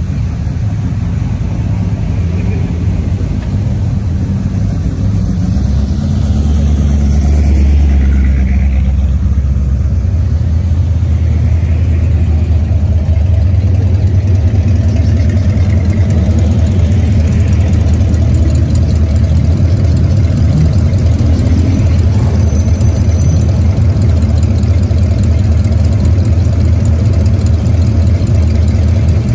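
Classic car engines running at low speed in slow street cruising traffic: a deep, steady rumble that grows louder about six seconds in and stays up.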